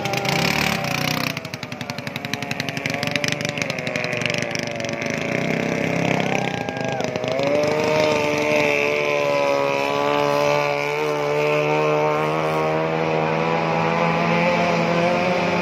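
Outboard motors of racing boats running at high revs as the boats speed past, the engine whine falling and rising in pitch.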